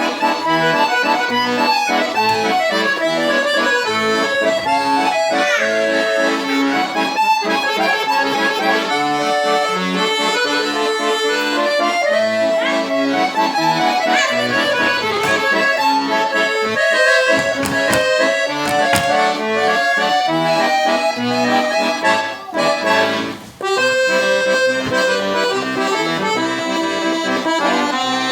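Piatanesi piano accordion playing a melody with chords, on a register setting meant to imitate a musette tone without musette-tuned reeds. The playing runs on, with one brief break about three-quarters through.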